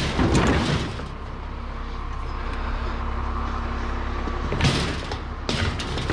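Aluminium bicycles clattering and knocking as they are lifted over the side and loaded into the back of a vehicle: a burst of rattling at the start, then a few sharp knocks near the end, over a steady low hum.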